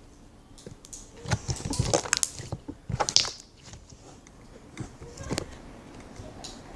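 Slime being squished and pressed by hand, giving clusters of wet clicks and crackles. They come mostly between about one and three and a half seconds in, with another short burst a little after five seconds.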